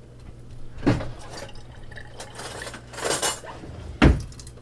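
A dish knocking against a kitchen sink as the excess water is dumped out of it, with a splash of water in the middle. There is a sharp clunk about a second in and a louder one near the end.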